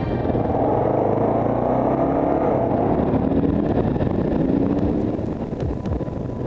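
Kawasaki KLR650 single-cylinder engine pulling under way, its pitch rising in several sweeps as it accelerates through the gears, with wind rush on the helmet-mounted microphone.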